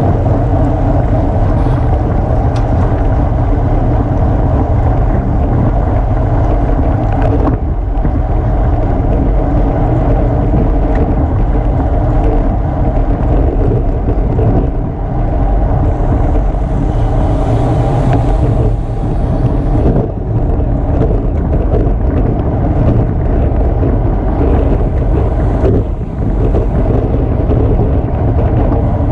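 Steady, loud rush of wind buffeting the microphone of an action camera on a racing bicycle moving at 20 to 30-odd mph.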